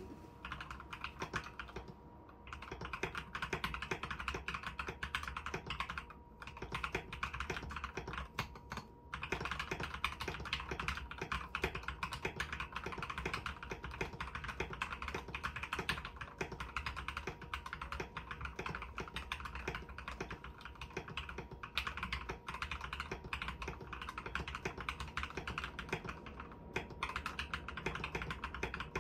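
Typing on a Gamakay LK67 mechanical keyboard with Gateron Red linear switches. The switch springs are lubed with Krytox oil, and the board is modded with case foam and a tempest mod. It is a steady run of fast keystrokes with a few short pauses.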